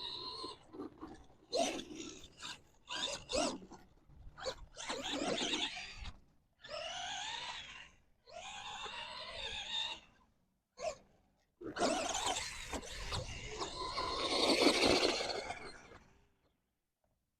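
Arrma Gorgon RC monster truck's brushed electric motor whining in repeated bursts of throttle, the pitch rising and falling with each run, with a longer run near the end. Scrapes and knocks of the truck on the dirt come between.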